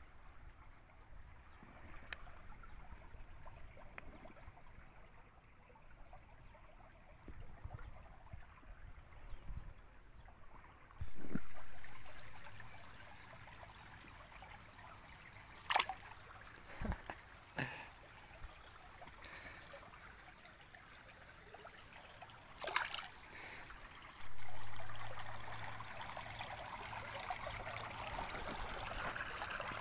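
Shallow stream water trickling over stones, with a few short splashes as a hand strokes New Zealand longfin eels in the water. Twice a sudden louder rush of noise rises and fades away.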